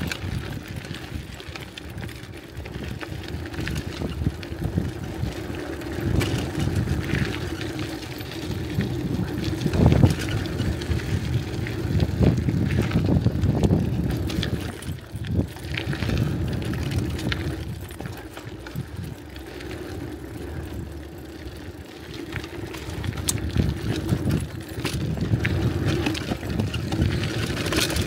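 Bicycle being ridden over rough trail ground: a steady rumble of tyres with frequent clicks, knocks and rattles from the bike, swelling louder at times.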